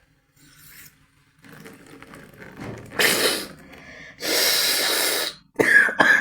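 A woman forcefully blasting air through her congested nose to clear mucus: a sharp burst about three seconds in, then a longer hard blast of about a second, then two short breaths near the end.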